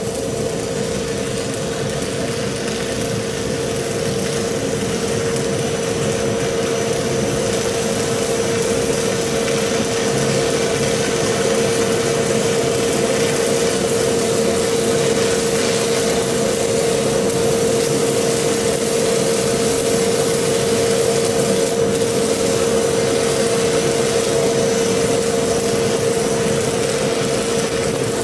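Electric arc welding crackling and sizzling steadily, over the steady hum of a fume extractor's fan drawing the welding fume up through its arm.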